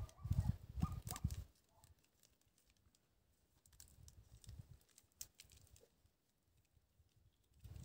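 A low, muffled rumble for the first second and a half, then faint scattered clicks and scrapes of a rake and hands working soil in a garden bed.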